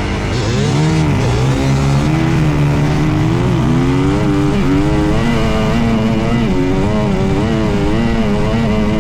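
Dirt bike engine running under throttle while riding, its pitch rising and dipping as the throttle is worked, wavering up and down about once a second in the second half.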